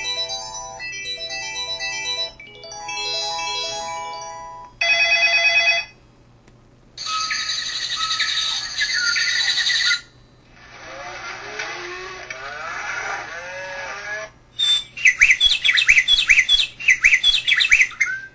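VK200C mobile phone playing its built-in ringtones and sound effects one after another: short electronic melodies of a few seconds each, separated by brief gaps, ending in rapid chirping pips.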